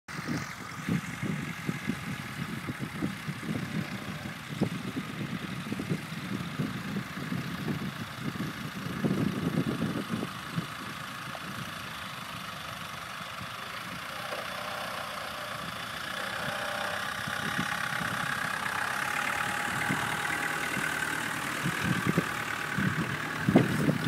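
Land Rover 90's engine running as it pulls a plough, with uneven low rumbling at first, then a steadier sound that grows louder over the second half.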